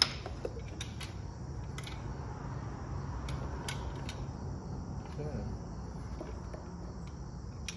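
Insects chirping steadily in a high, even drone, with a low hum underneath. Scattered light clicks and knocks come from handling a spindle cooling box and its hoses, the sharpest right at the start.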